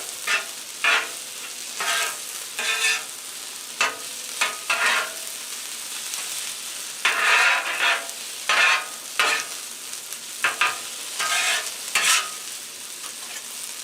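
Chicken in sauce sizzling on a Blackstone steel flat-top griddle, with metal spatulas scraping and clacking on the griddle surface in irregular strokes as the food is stirred and tossed.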